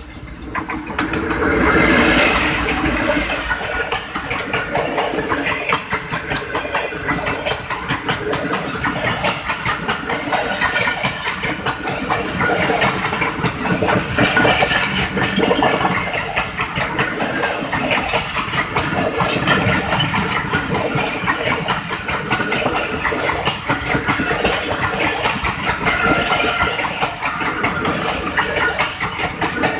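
An AGE-30 diesel-electric locomotive passes close by at speed, loudest about two seconds in. A long rake of passenger coaches follows, running past with a steady rumble and a fast clatter of wheels on the rails.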